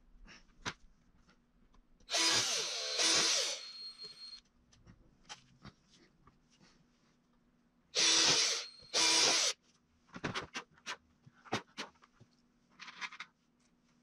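Cordless drill/driver running into the sculpture's wooden base board in short bursts: two bursts about two seconds in and two more about eight seconds in, each with a whine that shifts in pitch as the bit loads. Light clicks and knocks of tools and wood being handled come between the bursts.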